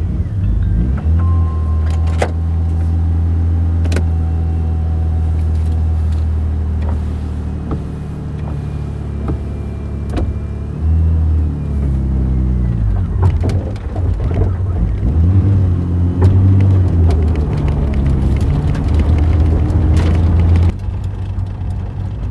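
Turbocharged M52 straight-six of a BMW E30, heard from inside the cabin, idling steadily just after starting. About eleven seconds in the note shifts as the car moves off, and engine speed then rises and falls as it drives, with a few sharp clicks along the way.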